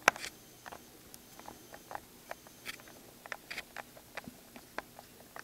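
Small irregular clicks and ticks of a screwdriver working the hard-drive bracket screws inside a 13-inch MacBook Pro, a couple of sharper clicks at the start.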